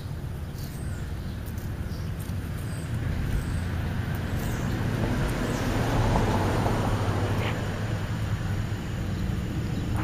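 A sedan driving past, its noise growing louder to a peak about six seconds in and then easing off.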